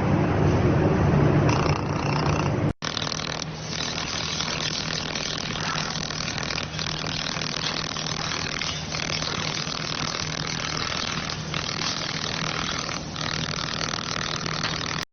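Steady machine running noise with a low hum, broken once by a sudden cut about three seconds in and then carrying on evenly.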